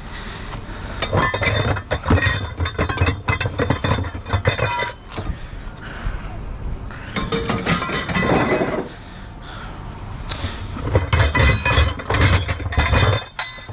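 Pieces of scrap metal clinking and clanking together as they are handled and tossed onto a pile, in several bursts of knocks.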